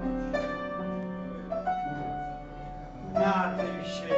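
Piano playing slow, sustained chords, moving to a new chord every second or so.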